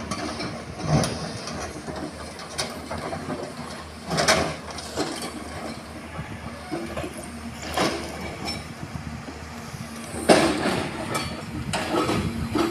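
Hyundai excavator's diesel engine running steadily while it loads broken rock into a truck, with a sharp clatter of rock and metal every few seconds as loads drop into the truck bed.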